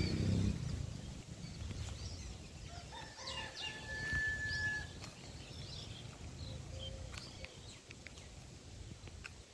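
A rooster crowing once, a single long held call about three seconds in, with scattered short high bird chirps around it.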